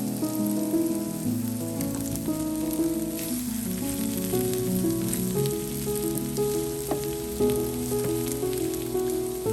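Background music: a slow melody of held notes, with a steady crackling hiss and small clicks over it.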